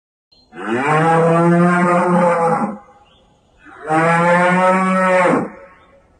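Cattle mooing: two long, loud moos, the first about two seconds long, the second a little shorter, with a short pause between them.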